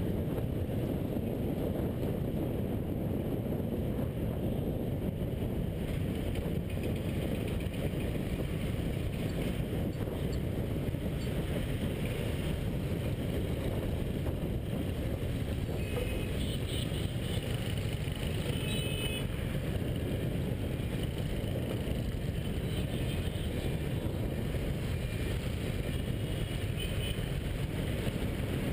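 Steady low rumble of a moving motorcycle: wind and road noise on a GoPro action camera, mixed with the bike's engine and the surrounding scooter and car traffic.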